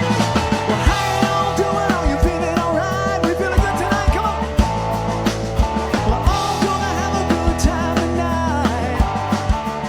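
Live country band playing a loud, up-tempo song: a drum kit beat with bass and electric guitar, and a lead line with sliding notes.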